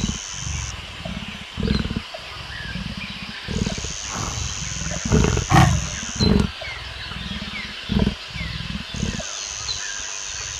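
Big cat growling in long low rumbles broken by several short, sharp grunts, with a steady high whine coming and going behind it.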